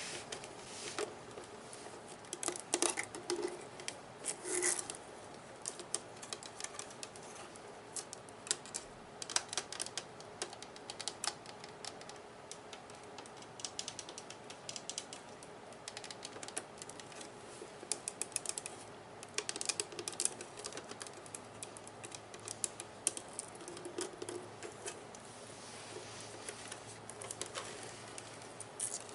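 Fingers and nails tapping and scratching on the plastic body of a Nerf gun, in irregular quick clicks that often come in rapid clusters.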